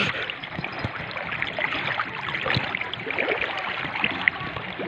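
Swift river current rushing and splashing around people wading chest-deep across it, with irregular sloshes and splashes from their bodies pushing through the water.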